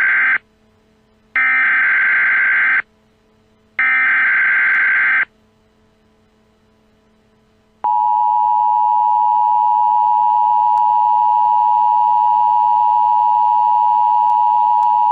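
Emergency Alert System tones: the end of one SAME header burst, then two more buzzy data bursts of about a second and a half each with short pauses between, and about eight seconds in the steady two-tone EAS attention signal starts and holds. The sequence signals that an emergency alert message is about to be read.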